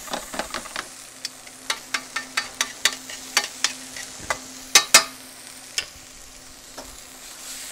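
Metal tongs tapping and scraping on a nonstick frying pan while stirring shallots, olives and capers, over a light sizzle of frying. The sharp clicks come irregularly, the loudest two close together about five seconds in; after about six seconds the stirring stops and only the sizzle and a faint steady hum remain.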